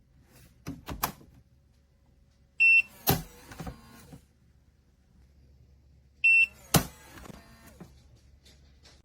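Electronic lock of a steel biometric pistol safe giving a short beep, followed at once by a loud clack as the spring-loaded door pops open, the metal box ringing briefly; this happens twice, about three and a half seconds apart, with lighter clicks of the door being handled between.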